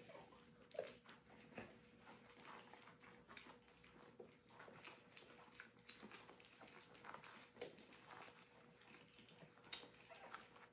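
French bulldog puppies licking and lapping soft food from silicone lick mats: a quiet, irregular run of small wet smacks and clicks.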